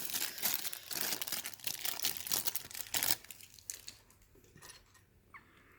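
Thin plastic Lego parts bag crinkling and being torn open: a dense crackle for about three seconds that thins to a few scattered rustles and then stops.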